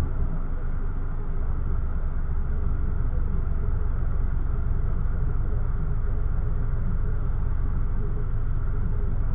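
Car engine idling steadily while stopped at an intersection, a low even rumble.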